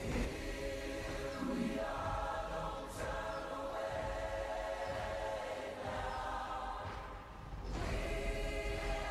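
Music with a choir singing long held chords. It dips briefly and swells again about three-quarters of the way through.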